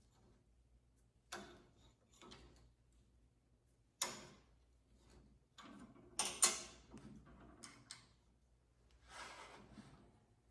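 Scattered metal clicks and knocks from handling and adjusting a gunmaker's (Parrot) vise on its base, the loudest pair about six seconds in, with a short scrape near the end.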